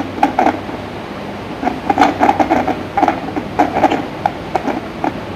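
A man's voice from a video call played through a laptop speaker, coming in short broken bursts with gaps, over a steady low hum.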